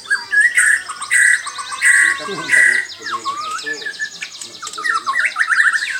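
White-rumped shama (murai batu) singing: four loud, clear whistled notes about half a second apart, then warbling glides and fast trilled phrases near the end, over a steady high chattering of other birds.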